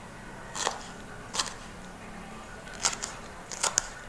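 A kitchen knife cutting vegetables on a cutting board: about five separate knocks of the blade on the board, spaced unevenly, two of them close together near the end.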